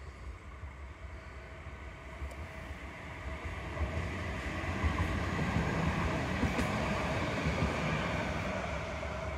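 A Tramlink tram passing along its track: a rumble with a steady whine over it, building up from about three seconds in, loudest in the middle, then fading as it goes by.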